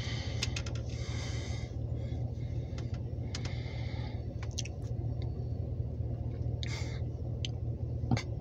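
Steady low engine hum heard inside a pickup truck's cab, with scattered light clicks and brief rustles.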